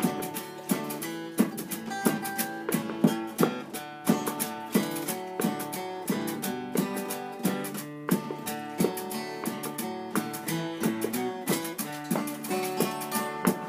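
Acoustic guitar played solo, strummed chords and picked notes in a steady rhythm, with no singing.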